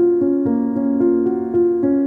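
Background music: a piano or keyboard melody of evenly paced notes, about four a second.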